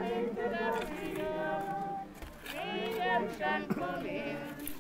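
Several voices singing together without accompaniment, holding drawn-out notes, in the manner of a congregation singing a hymn.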